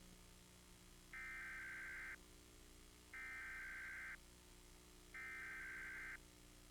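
Emergency Alert System SAME header: three bursts of digital data tones, each about a second long with about a second between them. The data bursts open an EAS test, carrying the coded alert type and area ahead of the attention signal.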